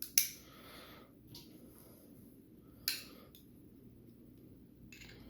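Sharp metallic clinks of small hand tools against a folding knife's parts during disassembly: one just after the start, a fainter one about a second in, another sharp one near three seconds, and a soft one near the end.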